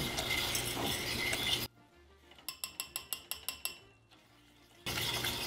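A wire whisk scraping and clinking in a stainless steel saucepan as softened cream cheese is worked into melted butter. About a second and a half in, the stirring drops out and a quick run of about ten bright tinkling chime notes plays. The stirring clatter comes back near the end.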